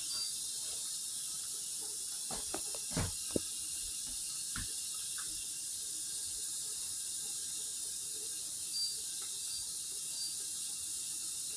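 Dishwasher filling with water: a steady high hiss of water running in, with a few light knocks a couple of seconds in.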